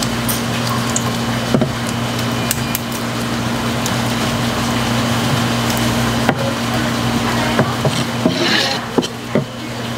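A knife knocking and scraping on a plastic cutting board as a live squid is slit open and gutted, in scattered sharp taps with a cluster near the end. Under it runs a steady low hum.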